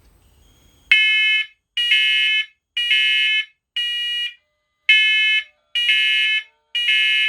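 Linked First Alert talking smoke and carbon monoxide alarms sounding. After about a second of quiet, seven loud, evenly spaced high-pitched beeps come about once a second.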